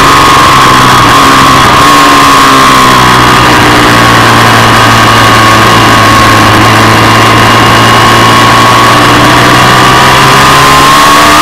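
Ducati 748's 90-degree V-twin engine running hard at high revs, over a loud rushing noise. The engine note sags slightly about halfway through and climbs again near the end.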